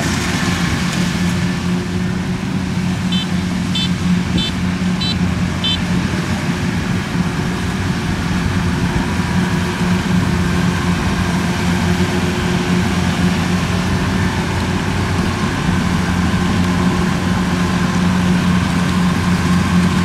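Kubota combine harvester's diesel engine running steadily at working speed, a constant hum with a strong low tone. About three seconds in, five short high chirps come in quick succession.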